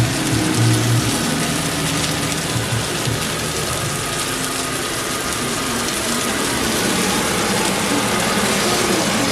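Food sizzling steadily in a hot pan.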